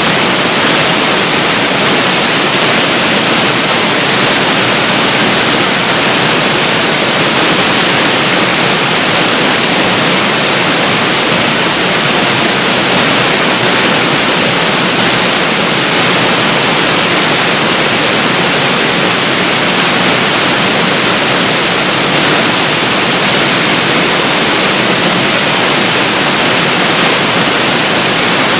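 Large artificial waterfall: a loud, steady rush of water falling onto the pool below, an even, unbroken roar.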